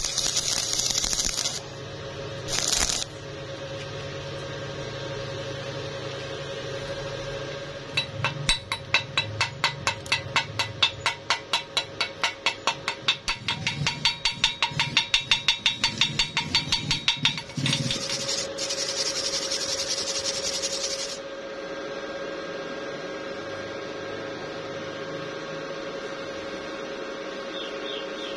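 Stick-welding arc with an E6013 rod crackling and hissing, cutting off after about a second and a half. Later comes a long run of sharp taps, about three a second, then more hiss, with a steady hum underneath throughout.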